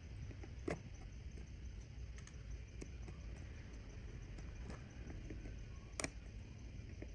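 Small clicks and taps of watchmaker's tools against watch parts over a low steady hum, with two sharper clicks: one about a second in and one near the end.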